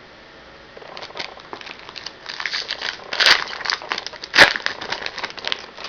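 A hockey card pack's wrapper crinkling as it is handled and opened, with two sharper crackles, about three and four and a half seconds in.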